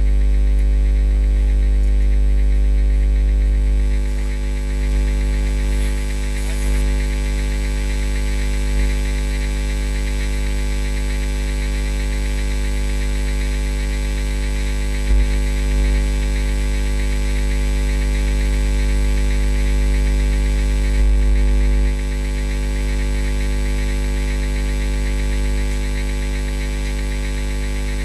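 Steady electrical mains hum: a low, loud drone with a stack of many steady overtones, easing down a little a few seconds in.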